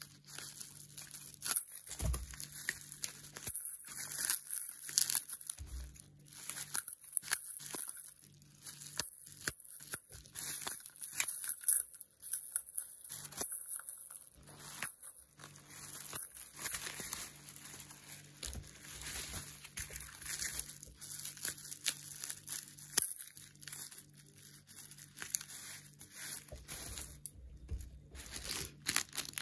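Plastic bubble wrap crinkling and rustling in the hands as a parcel is unwrapped, with irregular crackles throughout.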